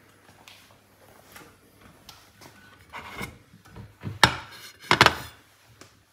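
A ceramic plate being handled and set down on a glass-ceramic cooktop: soft rubbing, then a few sharp knocks, the loudest about four seconds in and a double one about a second later.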